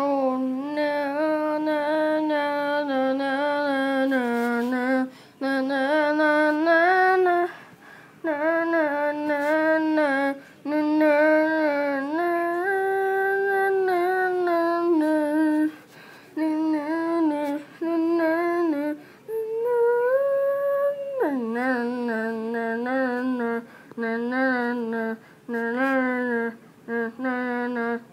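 A single voice humming a wordless tune in long held notes, with short breaks between phrases. About twenty seconds in, the pitch drops sharply and the following notes waver.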